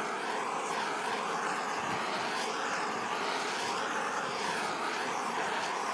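Handheld kitchen blowtorch burning with a steady hiss of flame, melting and browning grated gruyère cheese. The hiss wavers in tone about once a second.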